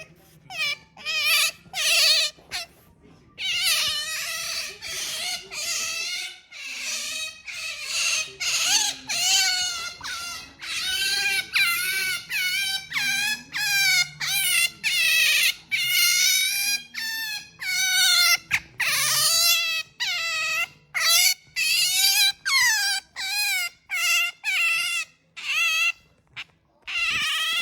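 Pet otter calling over and over: a long run of high-pitched, wavering squeals, some short and some drawn out for a second or more.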